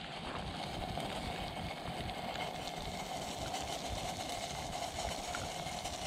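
Water boiling on a wood-burning camp stove: a steady rushing hiss over a low rumble.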